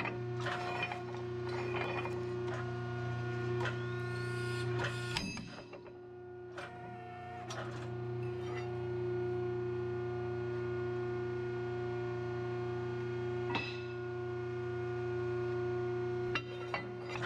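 Shop press humming steadily while it breaks a cracked steel leaf from a leaf spring. There is a sharp crack about five seconds in as the leaf snaps, with scattered metal clinks as the pieces are handled.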